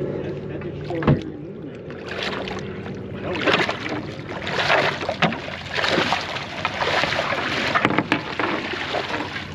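Water splashing in irregular bursts at the side of a boat, with a sharp knock about a second in. An idling boat motor hums steadily over the first two or three seconds.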